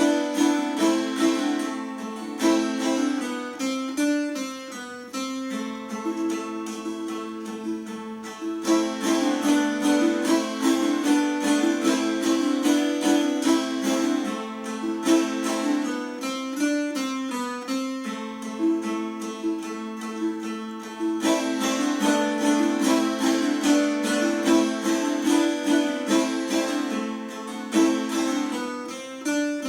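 Instrumental duet on plucked string instruments playing a quick, busy tune of many short notes, with two softer passages in between.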